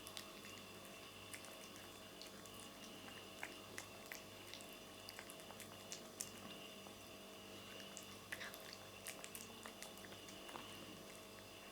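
A cat eating, its mouth making faint, irregular small wet clicks and smacks over a steady hum.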